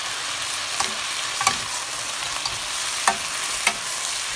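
Beef and vegetables sizzling steadily in a wok as they are tossed and stir-fried with two wooden spatulas, which knock sharply against the pan about four times.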